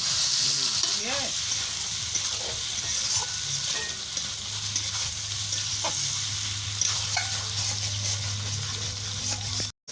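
Chicken and potatoes frying in a pan with a steady sizzle, stirred now and then. The sound cuts out briefly near the end.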